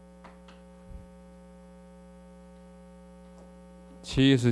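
Steady electrical mains hum on the lecture microphone's sound system, with a faint low thump about a second in. A man's voice comes in near the end.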